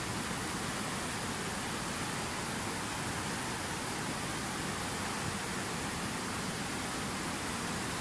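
Fast, turbulent mountain river rushing over boulders: a steady, unbroken whitewater rush.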